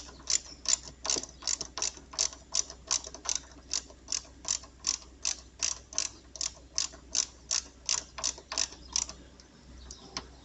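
Ratcheting wrench clicking steadily, about three clicks a second, as a 10 mm nut is run down on the chassis ground point; the clicks stop about nine seconds in.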